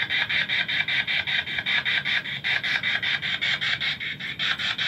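Ghost-hunting spirit box sweeping rapidly through radio stations: a continuous hiss of static chopped into about eight short bursts a second.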